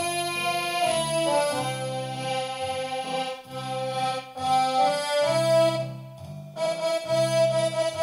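Roland FR-8x digital accordion playing a sustained melody over a rhythmic left-hand bass and chord accompaniment, with a brief lull about six seconds in.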